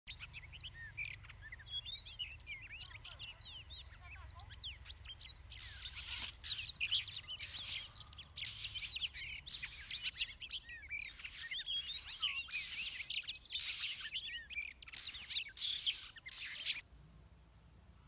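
Oriental magpie-robins singing in a territorial song duel: rapid, varied whistles and chirps, dense and loud through most of the stretch, stopping abruptly just before the end.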